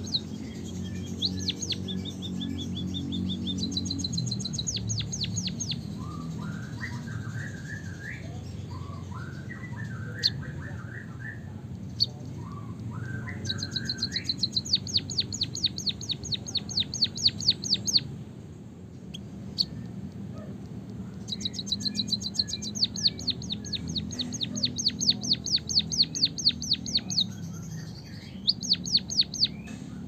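White-headed munia singing canary-style rolling song: several runs of rapid, high repeated notes, with lower warbling phrases between them about a third of the way in.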